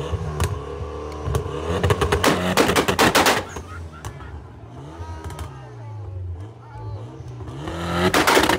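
Mitsubishi Lancer's exhaust as the engine is revved, popping and crackling in rapid strings of sharp bangs about two seconds in and again near the end, over a rising and falling engine note.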